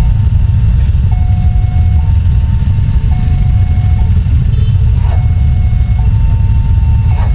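Railway level-crossing warning siren sounding a two-tone electronic alarm, stepping between a higher and a lower pitch about once a second, the signal that a train is approaching. A steady low rumble runs underneath.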